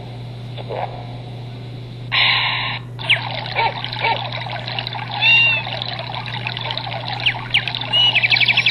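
Samsung SCH-V420 mobile phone playing one of its built-in ringtone sound effects through its small speaker: a short loud burst about two seconds in, then a busy hiss with chirps and quick upward sweeps, and a fast run of clicks near the end. A steady low hum runs underneath.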